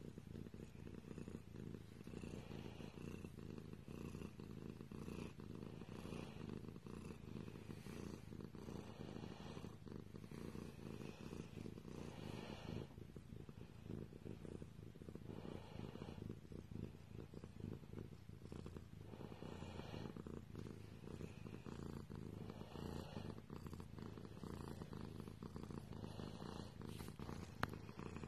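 A domestic cat purring steadily and close up while being stroked under the chin, the purr swelling and easing with each breath every second or two. A small click near the end.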